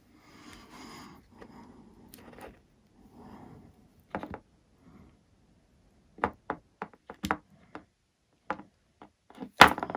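Objects being handled on a workbench: soft rustling, then a string of light knocks and taps, the loudest one just before the end.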